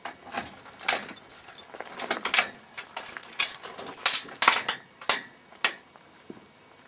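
Keys jangling and metal clicking as a lock on a corrugated sheet-metal door is worked open, in a run of short rattles and clicks.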